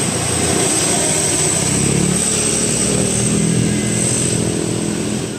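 A large bus's engine running loudly as it passes, with a steady high whine over it.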